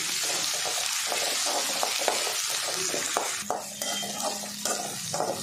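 A spatula stirring and scraping sliced onions and curry leaves around a metal kadai while they sizzle in hot oil, as ginger-garlic paste is sautéed until its raw smell goes. The sizzle eases about three and a half seconds in.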